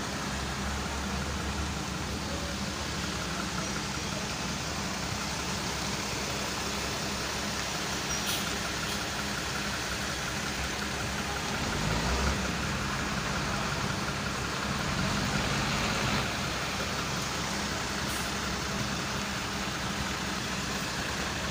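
Bus and van diesel engines running, over a steady hiss of heavy rain and water, with one louder engine swell about twelve seconds in.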